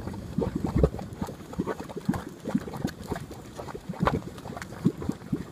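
Geothermal mud pot bubbling and spitting: irregular plops and pops of gas bursting through thick hot mud, with louder pops a little under a second in, about four seconds in and just before five.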